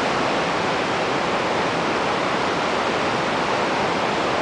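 Steady rush of the whitewater at Lava Falls, a large rapid on the Colorado River, heard from the scouting rocks just above it.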